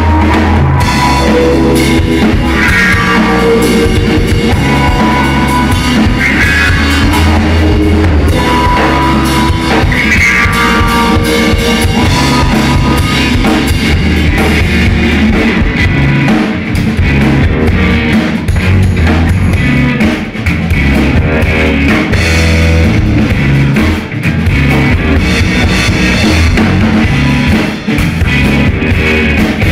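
Loud live instrumental rock: a drum kit and electric guitars played together through amplifiers, with no singing.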